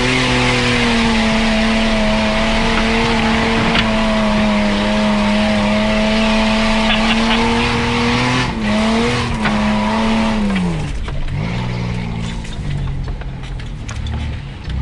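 Off-road 4x4's engine held at high, steady revs under load for about eight seconds. It is then briefly let off and blipped, and the revs fall away about ten seconds in to lower, uneven running.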